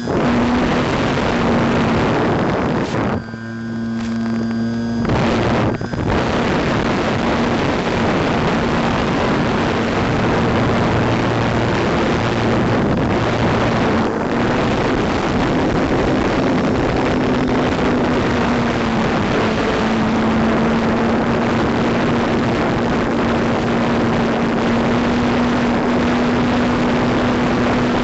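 Onboard sound of a radio-controlled biplane in flight: loud wind rush over the microphone with the motor and propeller's steady drone. The rush drops out briefly about three seconds in, then carries on.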